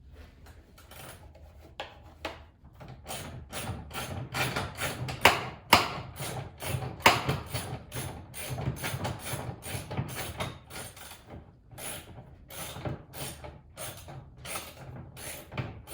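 Hand tool working the mirror's mounting nuts inside a truck door: a long run of irregular clicks and scrapes, a few at first, then two or three a second from about three seconds in.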